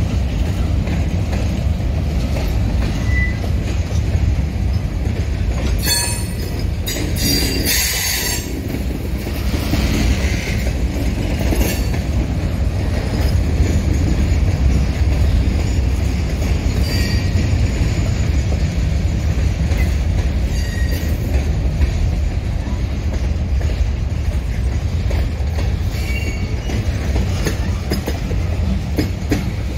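Freight train of boxcars and covered hopper cars rolling slowly past, a steady low rumble of steel wheels on the rails. Several short, high metallic squeals break in between about six and twelve seconds in, with a few fainter ones later.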